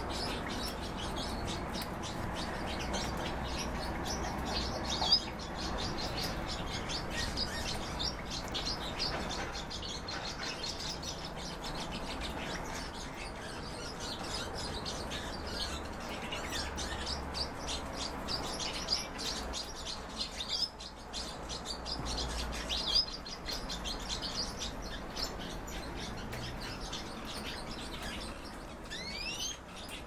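Small caged songbirds chirping and twittering in quick, high notes, with a couple of rising whistled calls near the end.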